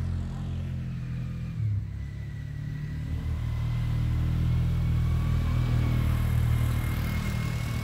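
Quad ATV engine running with a steady low rumble that grows louder partway through, with a faint steady high whine over it.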